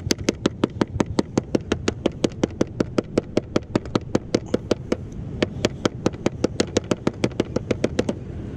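Small mallet pounding a piece of squid bait on a cooler lid, a fast even run of knocks about five a second that stops near the end. The squid is being beaten to tenderise it, since it is tougher than chokka.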